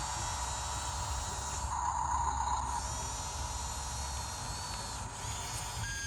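YIGONG YG258C excavator running, with a low engine rumble under a steady high whine that swells briefly about two seconds in.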